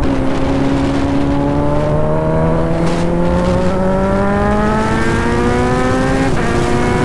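Kawasaki Z900's inline-four through an SC Project aftermarket exhaust, accelerating hard with the engine note climbing steadily. About six seconds in the pitch drops sharply in a quickshifted upshift, then starts climbing again, over wind rush.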